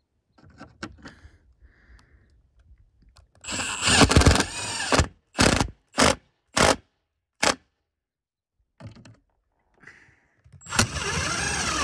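Power drill working the steel ridge cap of a corrugated metal roof. It makes a run of about a second and a half, then four short trigger bursts, then another longer run beginning near the end.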